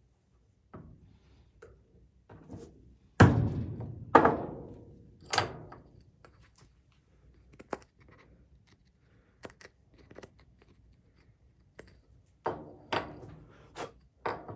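Chisel cutting into a wooden hole-saw plug to carve a recess for a nut: a series of sharp knocks and thunks at irregular intervals. The loudest come a few seconds in and again near the end, with light ticks between.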